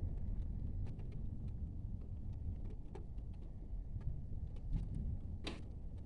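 Thunderstorm ambience: a steady low rumble of wind on the microphone, scattered faint ticks, and one short sharp sound about five and a half seconds in.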